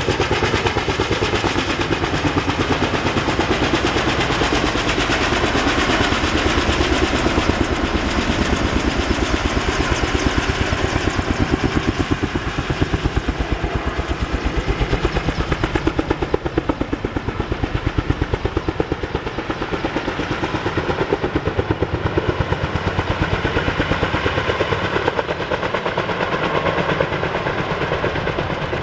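Helicopter rotor chop: a steady, rapid beating of the blades with the turbine running, loud and unbroken, from a helicopter lifting out cut trees.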